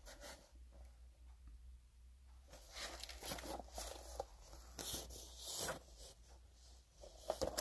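Pages of a large hardcover book rustling and turning as it is opened and held up. A series of short, soft papery swishes, strongest about five seconds in.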